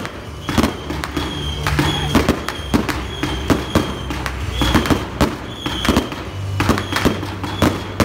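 Aerial firework shells bursting in quick succession, a string of sharp bangs about two or three a second, each followed by a short echoing tail.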